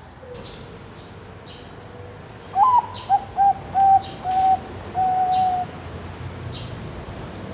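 Bangkok perkutut (zebra dove) singing one cooing phrase about two and a half seconds in: a rising opening note, a run of short coos and a longer held final coo. Faint high chirps from other birds sound in the background.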